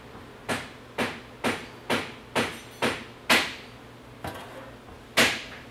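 Metal clicks and knocks from handling an automatic transmission case and its oil pan: a run of about seven sharp, evenly spaced clicks, roughly two a second, then a faint knock and a louder clank near the end.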